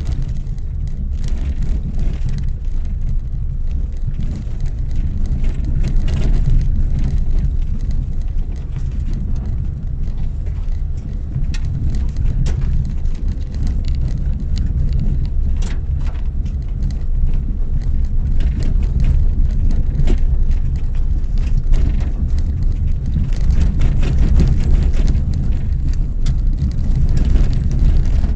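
Car driving slowly over a rough unpaved track: a steady low rumble, with gravel ticks and knocks from the tyres and suspension scattered throughout.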